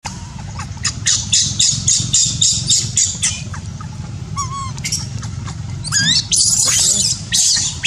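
Baby macaque screaming: a run of rapid shrill cries, about four a second, then a few longer rising squeals and harsher screams near the end.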